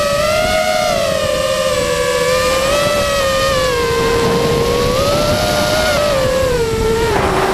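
FPV mini quadcopter's brushless motors and propellers whining, the pitch wavering up and down with the throttle and sinking lower near the end, over a steady rush of wind.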